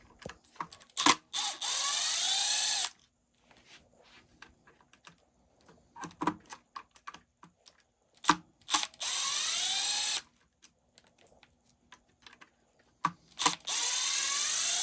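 Power driver backing screws out of an RC truck's cover, in three runs of about one and a half seconds each, its motor whine rising in pitch as it spins up. Small clicks and knocks of handled parts come between the runs.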